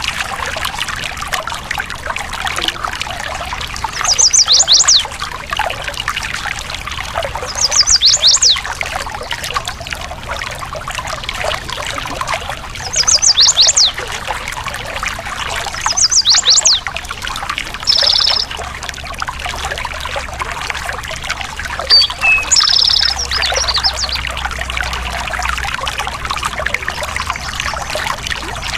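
Water trickling and flowing steadily in a stream, with birds singing loud short high phrases every few seconds, mostly quick runs of three or four falling whistled notes.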